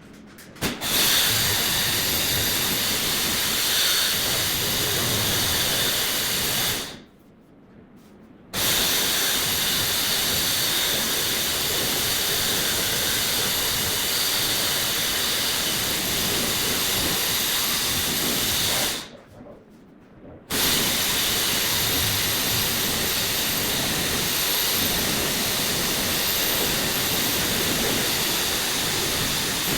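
Loud steady hiss of pressurised gas or air rushing out, with a faint high whistle on top. It stops abruptly twice, about 7 and 19 seconds in, and starts again sharply after a second or two each time.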